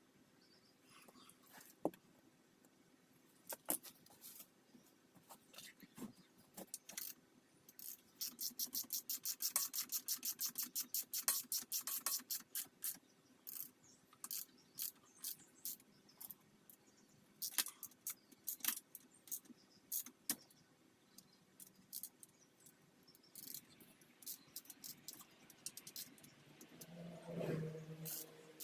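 Metal hand tools and bike parts clinking and clicking during work on a dirt bike, with a run of quick, even clicks for about four seconds midway. A brief low hum comes near the end.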